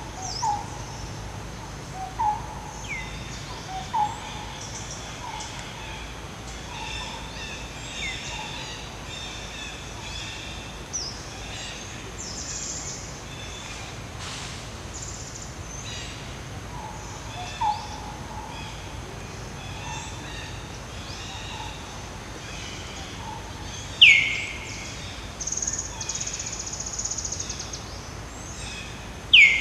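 Wild birds calling over a steady background: a short low note repeated every second or two, higher chirps and trills, and a loud call that sweeps down in pitch about three-quarters of the way through and again at the very end.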